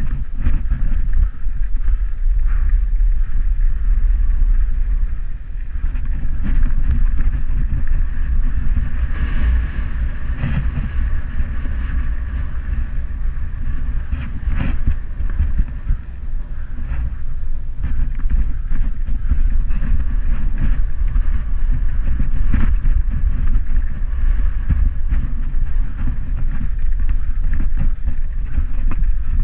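Heavy wind rumble on an action camera's microphone while riding a mountain bike down a rough dirt trail, with scattered knocks and rattles as the bike goes over bumps and rocks.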